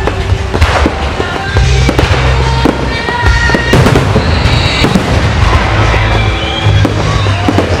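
Fireworks going off in rapid succession, many sharp bangs and crackles, over music with a heavy bass line.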